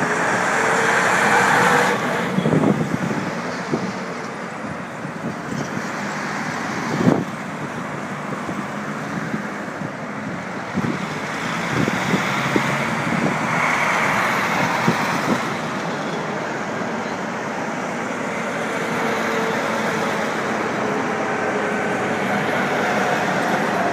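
Column of Russian army Ural and KamAZ six-wheel-drive trucks driving past one after another: steady diesel engine and tyre noise that swells and fades as each truck goes by. A single sharp knock about seven seconds in.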